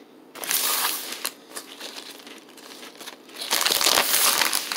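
Plastic chip bag crinkling as it is handled, in two bouts: a short one about half a second in and a longer, louder one near the end.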